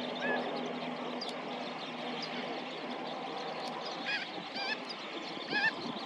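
Short bird calls, each with a slightly wavering pitch: one just after the start, then small clusters about four seconds in and near the end. A steady background rush runs underneath.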